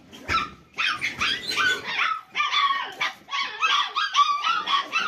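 Puppies yelping and whimpering, a steady run of short high-pitched cries, two or three a second.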